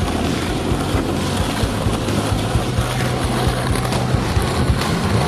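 Skateboard wheels rolling over rough asphalt: a steady rumble and hiss.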